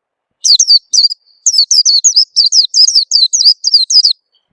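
Peleci bird singing a fast run of about a dozen short, high chirps, each sliding down in pitch, starting about half a second in and stopping just after four seconds. It is a lure song used to coax young birds into singing.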